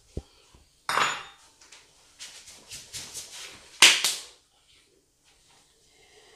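A run of short, sharp, clap-like sounds and breathy bursts from a man tasting food. The loudest comes just before four seconds, as he brings his hands together in a clap.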